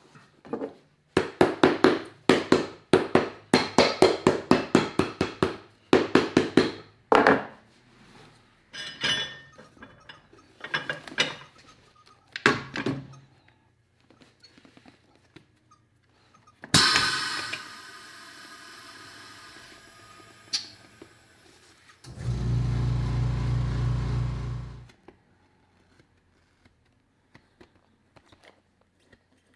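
Shoe-repair tool work on a boot: a fast run of sharp knocks for several seconds, then scattered knocks. A sudden loud clatter comes in the middle, and near the end a motor hums low and steady for about three seconds before stopping.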